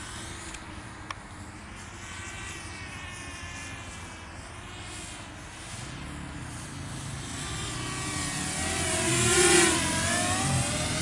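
Walkera F210 racing quadcopter's motors and propellers whining, the pitch sliding up and down as the throttle changes through its manoeuvres. It grows loudest as it passes close about nine seconds in, then eases off.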